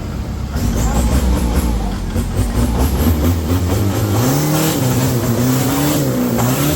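Off-road 4x4 truck engine revving hard under load, getting louder about half a second in, its pitch rising and dipping repeatedly as the throttle is worked.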